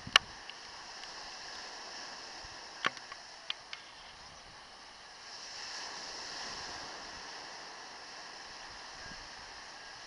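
Sea surf washing on the beach as a steady hiss that swells for a couple of seconds about halfway through, with a few sharp clicks in the first four seconds.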